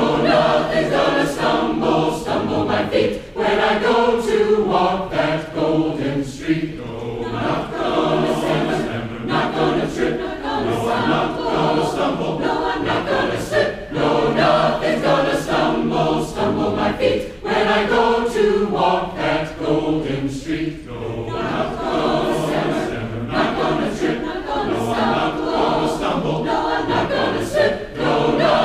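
Large mixed choir singing a gospel-style song, many voices in harmony, with short sharp accents falling regularly on the beat.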